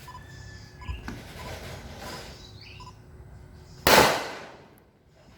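A single loud gunshot about four seconds in, its report ringing on for about a second, with a fainter sharp crack about a second in.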